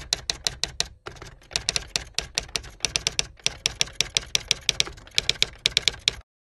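Typewriter keystroke sound effect: a rapid, uneven run of sharp key clacks, about six or seven a second, with short breaks about a second in and a little past three seconds, stopping abruptly just before the end.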